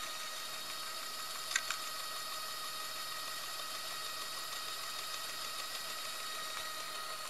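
Bang & Olufsen Beocord 5500 cassette deck running between music passages: a steady faint whine over hiss from the tape mechanism, with a single click about a second and a half in.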